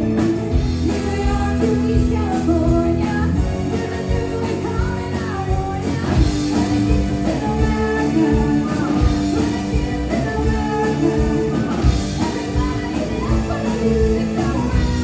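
Live rock band playing with women's vocals: electric guitar, keyboard, bass guitar and a drum kit, loud and steady.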